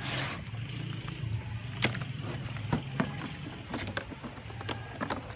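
Scattered clicks and knocks from a hammer drill's box being opened and the tool handled, over a steady low hum.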